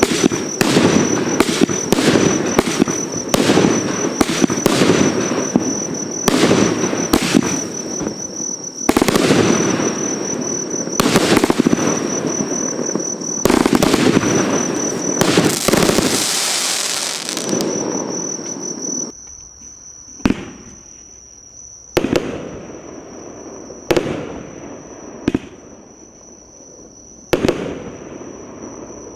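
A 48-shot, 26 mm fireworks battery (cake) firing: a rapid, overlapping string of launches and bursts. After about 19 s it thins to single bangs every two seconds or so.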